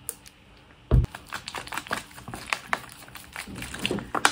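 Crinkling and rustling of an Emergen-C powder sachet and a plastic water bottle being handled as the drink mix is made, with a single thump about a second in.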